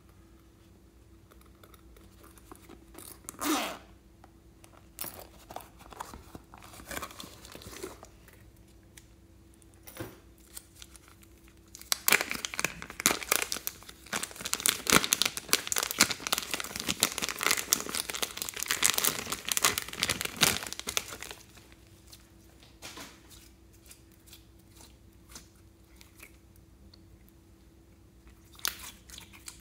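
Thin plastic zip-lock bag crinkling and rustling as hands work it open, with a dense, loud stretch of crackling for several seconds in the middle. Scattered softer crackles of handling come before and after.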